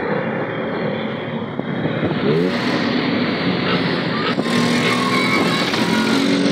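Auto rickshaw engines running hard at full speed, with rushing road and wind noise; about two seconds in an engine's pitch climbs as it revs up, then holds steady.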